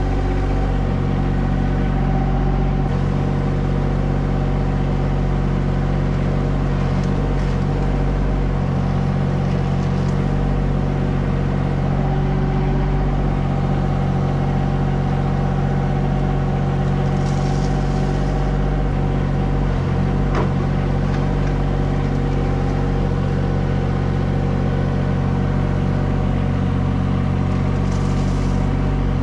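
A mini excavator's diesel engine running steadily under the operator's seat while the boom and bucket are worked. A single sharp knock sounds about twenty seconds in.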